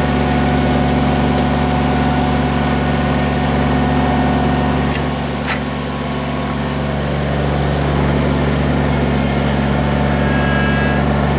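Kubota BX23S compact tractor's three-cylinder diesel engine running steadily, with two sharp clicks about five seconds in.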